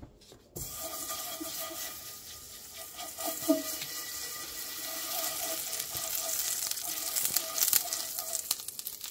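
Butter sizzling and crackling as a stick of butter is rubbed over a very hot cast iron skillet, melting and foaming. The sizzle starts suddenly about half a second in and grows a little louder, with a brief knock about three and a half seconds in.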